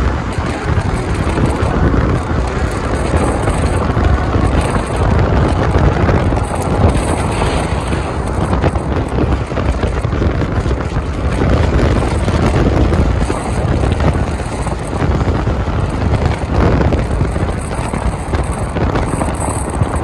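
A car on the move: steady, loud rumbling road and wind noise, with rushing wind on the microphone.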